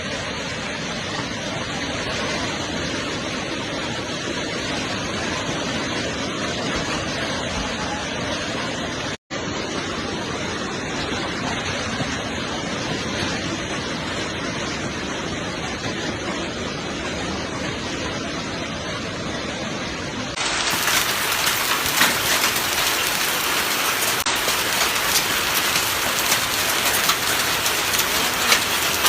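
Heavy rain from a summer thunderstorm, a steady hiss. It cuts out for an instant about nine seconds in, and from about twenty seconds in it is louder and crisper, with many individual drops ticking.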